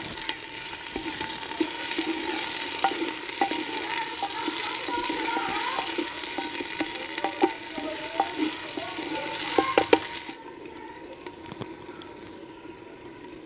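Onions frying in oil in a clay handi, sizzling while a wooden spatula stirs them and knocks against the pot. The sizzle drops much quieter about ten seconds in.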